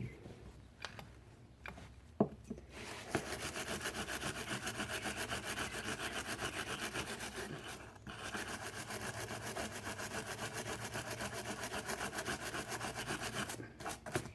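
Metal surface of a boat-motor starter mounting plate being scrubbed back and forth by hand with an abrasive, about five quick strokes a second, to clean white oxidation off the ground contact. The scrubbing starts about three seconds in after a few light clicks and pauses briefly about halfway through.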